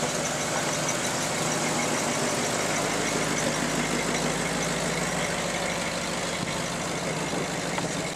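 Classic car engines idling as cars creep past at walking pace: a steady low engine hum with no break.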